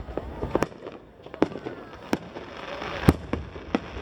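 Aerial fireworks shells bursting at a display finale: about six sharp separate bangs in four seconds, the loudest about three seconds in.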